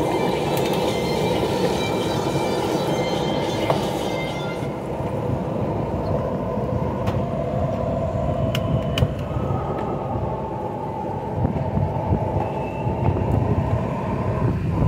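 Steady roaring rumble of a roadside stall's gas burners under a wok of chicken in sauce, with a few sharp clicks of a wooden spatula against the pan.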